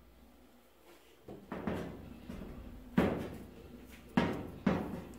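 About five sharp knocks and clunks from handling a metal LPG gas regulator and its hose. The first comes just over a second in and the loudest about three seconds in.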